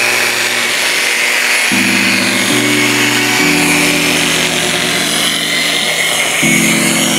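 Electric rotary polisher with a foam pad, running steadily as it buffs wax on a textured plaster wall to bring up the shine.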